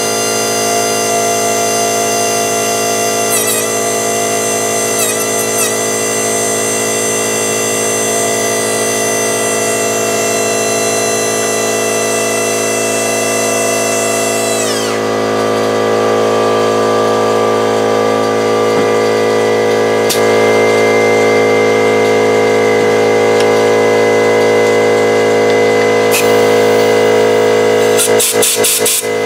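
Pencil die grinder with a small mounted grinding wheel whining at very high speed. It dips briefly in pitch two or three times early on, then winds down in a falling whine about halfway through. A steady lower hum carries on beneath, and a quick rattle comes near the end.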